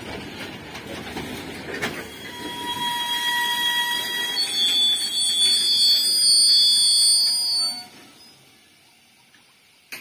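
Freight train wagons rolling past with a rumble, then their wheels squealing in several steady high-pitched tones at once that grow louder. The sound cuts off abruptly about eight seconds in, leaving a faint hush.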